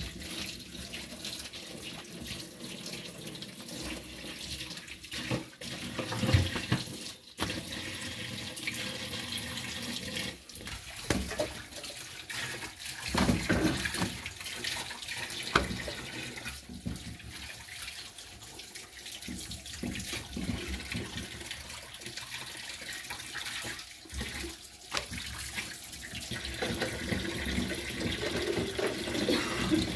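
Steady hiss of a gas stove burner heating a nonstick tawa, with a few soft knocks and handling sounds as flour rotis are laid on the pan and lifted off.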